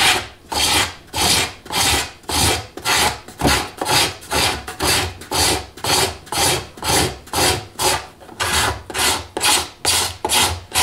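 Hand cabinet scraper drawn in quick, even strokes, a little over two a second, shaving cured epoxy off inlaid purfling at the edge of a guitar top.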